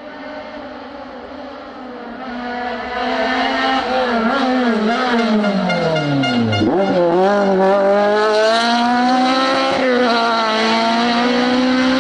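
Renault Clio rally car's engine at full race revs, approaching and passing close by. Its pitch falls in steps to a low about six and a half seconds in, then climbs hard as it accelerates away, with a gear change about ten seconds in.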